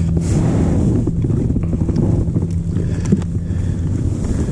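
Wind buffeting the camera microphone: a loud, steady low rumble, with a few light knocks about a second and a half and three seconds in.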